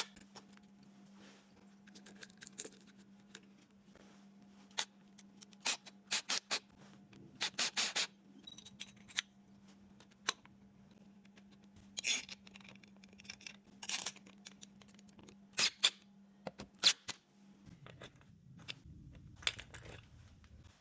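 Scattered sharp metallic clicks, knocks and light scrapes of deadbolt hardware and hand tools as a door lock is taken out, rekeyed and fitted, over a faint steady hum that stops near the end.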